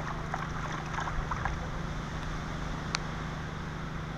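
Gold pan being swirled and dipped in shallow creek water, with water sloshing and splashing, over the steady hum of a dredge engine running. A single sharp click about three seconds in.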